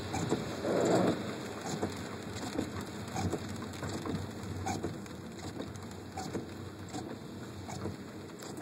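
Raindrops tapping on a car's roof and windshield, heard from inside the moving car, over the hiss of tyres on a wet road. There is a louder rush about a second in.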